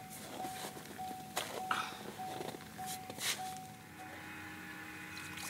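Electronic beeping: one short steady tone repeated about one and a half times a second for about four seconds, then stopping. Scattered crunches of boots and slush on the ice are heard over it.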